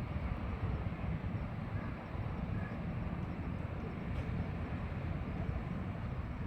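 Steady low rumble of the Kanaya Maru car ferry under way, its engines running without change.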